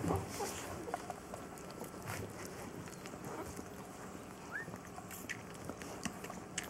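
Newborn rough collie puppies suckling at their mother's teats for the first time: faint wet sucking and scattered small clicks, with one short rising squeak about four and a half seconds in.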